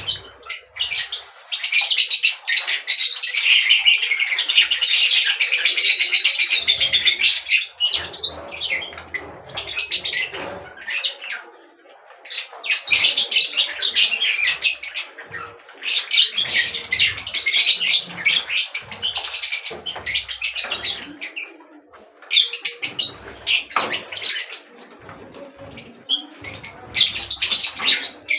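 Small birds chirping and chattering rapidly and densely, in long bouts separated by short pauses.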